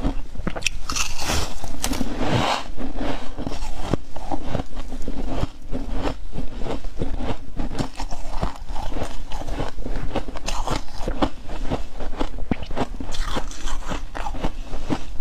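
Freezer frost ice being bitten and chewed: dense, rapid, crackly crunching, heaviest in the first few seconds and coming again in short bursts later on.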